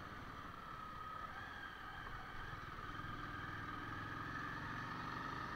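Motorcycle running at riding speed, heard from on the bike with road and wind noise. A deeper, steady engine hum comes in about three seconds in.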